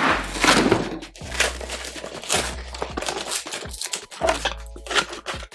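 Cardboard shipping box being ripped open by hand: a series of loud tearing rips and crumpling of the cardboard flaps and packing tape.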